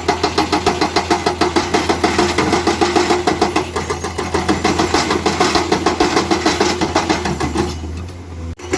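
Heavy construction machine's diesel engine, most likely an excavator's, running with an even throbbing pulse of about six beats a second. The sound eases off near the end and drops out sharply for a moment.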